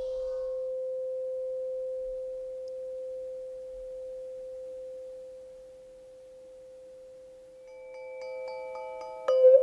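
Large tubular tuning fork ringing with a single pure tone that slowly swells and fades. Near the end, light taps with a mallet bring in higher ringing tones, followed by a harder strike.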